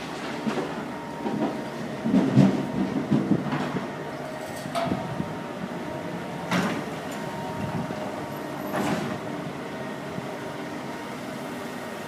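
Heavy machinery and vehicles at a road construction site: a steady engine hum with a run of metallic clanks and knocks, loudest about two to three seconds in, and a few sharper knocks later on.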